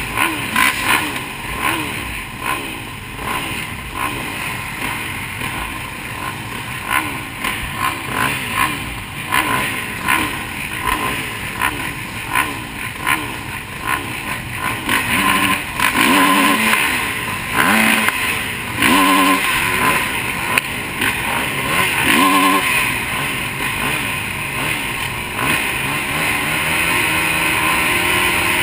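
A row of motocross bikes at the start gate, among them a KTM 350 SX-F four-stroke, idling and revving in short throttle blips, many rising and falling engine notes overlapping. The revving gets louder and more frequent from about halfway through, as the riders wait for the gate to drop.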